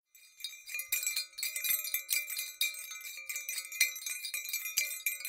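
Tinkling chimes and small bells struck in quick, irregular succession, each strike ringing on into the next.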